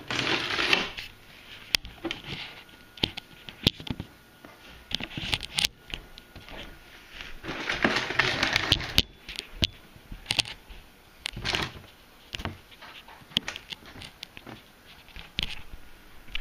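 Handling noise from the camera being moved and fingered: irregular rubbing and scraping with many sharp clicks and taps. The noise is louder about a second in and again around eight seconds in.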